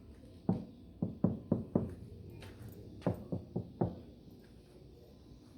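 Knocking on a 2008 Toyota Corolla body panel lined with sound deadener: a quick run of five knocks, then a pause, then four more.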